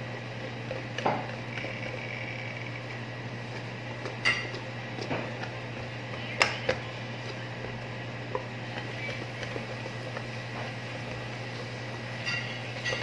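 Wire whisk beating thick cake batter in a stainless steel bowl, with a few sharp clinks where the whisk strikes the bowl, over a steady low hum.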